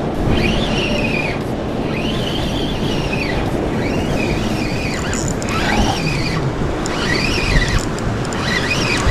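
Spinning reel's drag giving line to a hooked fish in a series of rising-and-falling squeals, about one a second, as the fish pulls against the bent rod. Wind on the microphone and surf rumble underneath.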